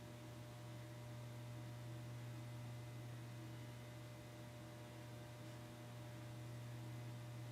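Antique GE AH-52 cast iron ceiling fan motor running at low speed on a solid-state speed control, giving off a steady low electrical hum.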